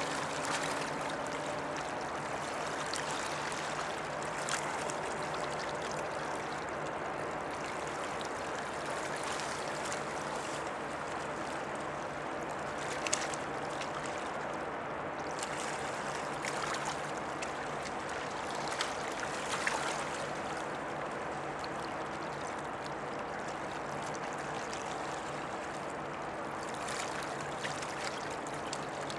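Water lapping and washing against the riverbank, with a few small splashes, over a steady low hum from the passing container ship.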